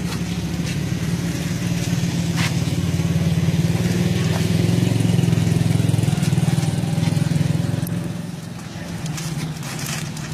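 A motor engine running with a low, steady hum. It grows louder from about three seconds in and eases off after about eight seconds, with a few sharp clicks over it.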